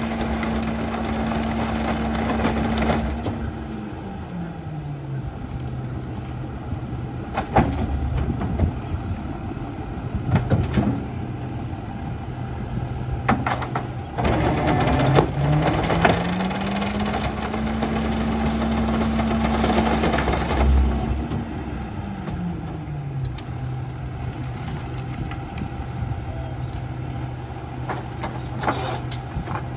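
Autocar ACX rear-loader garbage truck's diesel engine speeding up to a raised idle to drive the packer hydraulics. It drops back to idle about four seconds in, rises again around the middle and settles back down. Several sharp knocks and cracks come from wooden fence sections being thrown into and broken in the hopper.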